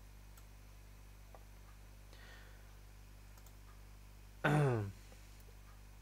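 Faint computer mouse clicks over a low steady hum. About four and a half seconds in, a man's voice gives a short falling hesitation sound.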